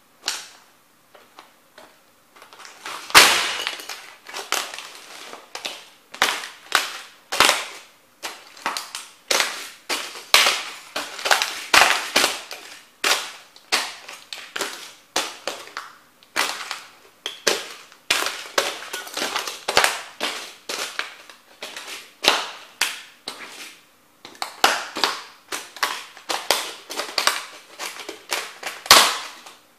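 Model train houses being crushed under Nike Air Max 90 sneakers: a long run of sharp cracking and crunching snaps, about one or two a second, as the small buildings and their broken pieces give way underfoot. The loudest crack comes about three seconds in.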